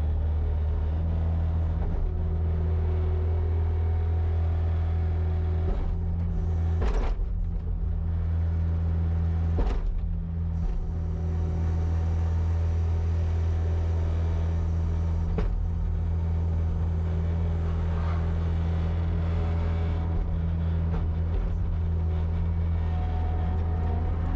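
Kubota SVL95-2S compact track loader's 87 hp Tier 4 diesel engine running steadily under work, with a higher steady whine over it for a few seconds near the start. Two sharp clanks stand out, about seven and ten seconds in.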